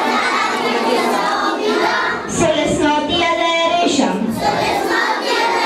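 Children singing a song.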